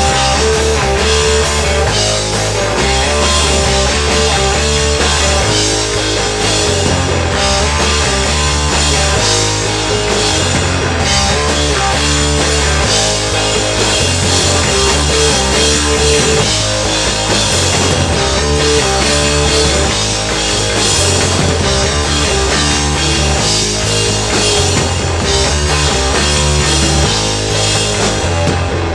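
Rock band playing live, with electric guitar and drum kit over a bass line that moves in even blocks.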